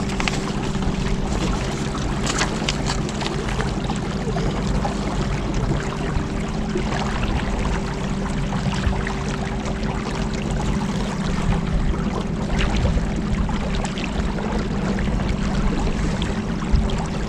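Electric trolling motor running steadily with a constant hum, over the rush of water and wind as the boat moves. A few light knocks.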